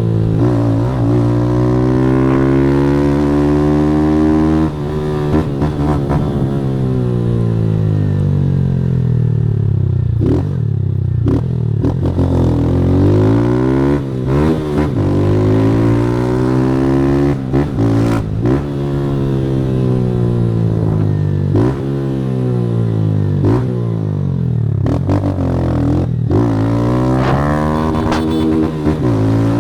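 Motorcycle engine through a Fortuna Trioval aftermarket exhaust, revving up and dropping back over and over as the bike accelerates, shifts gear and slows, with a few brief sharp noises in between.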